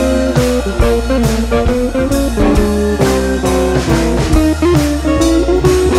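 Background music: a blues-rock track with guitar over a steady drum beat.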